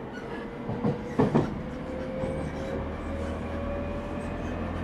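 Interior running sound of a JR 209 series 0 motor car. The traction-motor whine rises slowly in pitch as the train gathers speed, over a low running rumble, with a few sharp knocks about a second in as the wheels clatter over rail joints.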